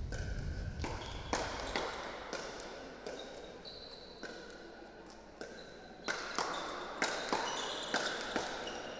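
Pickleball rally: the plastic ball popping sharply off the paddles in a quick exchange, about two hits a second, with a short lull midway before the exchange picks up again.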